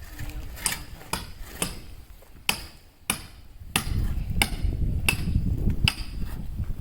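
Hammer blows, about ten sharp separate strikes at one or two a second, typical of hammering on metal gate parts. A low steady rumble joins in about four seconds in.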